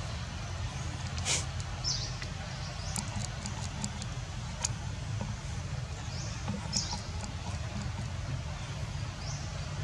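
Outdoor ambience: a steady low rumble with a few short high chirps and scattered sharp clicks.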